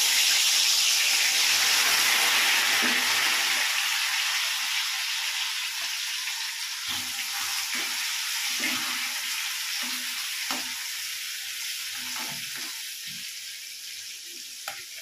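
Soaked pieces of dried Bombay duck (lotte fish) dropped into hot oil in a wok, sizzling loudly at once and slowly dying down as the wet pieces fry. Light taps and scrapes of a spatula stirring them come in the second half.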